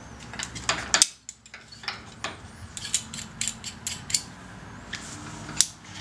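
Metal locking carabiners clicking and clinking against each other as one is clipped around a climbing rope's Munter hitch: a run of sharp, irregular clicks.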